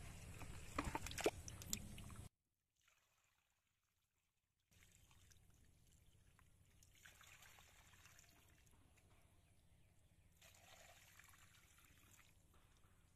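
Faint trickling and sloshing of water in a shallow muddy pool where eels are swimming, with a few sharp clicks in the first two seconds. The sound cuts out to silence for about two seconds, then a fainter trickle with gentle swells resumes.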